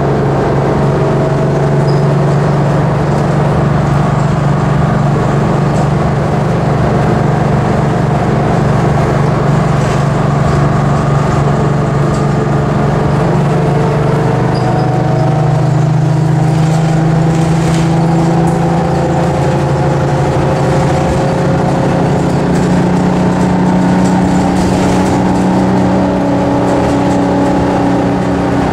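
Detroit Diesel 6V92TA two-stroke V6 diesel of an MCI Classic transit bus running under way, heard from inside the passenger cabin. The engine note is steady at first, then climbs gradually through the second half as the bus gathers speed.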